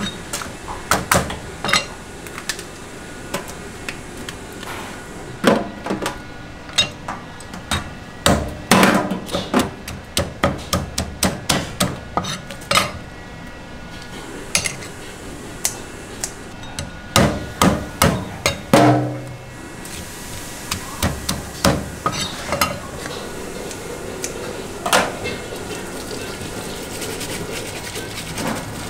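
Heavy cleaver chopping and cracking crab shell on a thick wooden chopping board: a long run of sharp knocks, often several in quick succession. In the last part, tap water runs onto the crab pieces in a steel sink.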